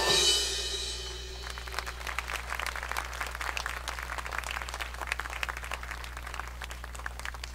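A jazz big band's final chord cuts off just after the start and rings away, then from about a second and a half in the audience claps.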